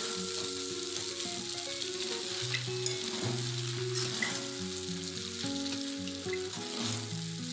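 Noodles and shredded vegetables sizzling in a hot wok as they are stir-fried and tossed with a spatula, a steady sizzle with a few light clicks of the spatula. Background music of slow held notes plays underneath.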